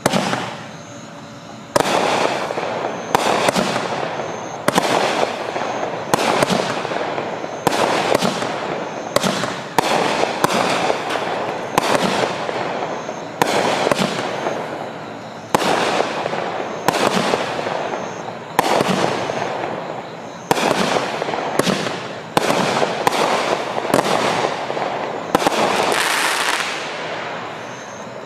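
Miracle Fireworks 'In God We Trust' 20-shot, 200-gram fireworks cake firing: a string of sharp shots about every second, each followed by a fading crackling burst. Near the end comes a longer, louder crackling stretch, the gold-pine-with-crackle finale.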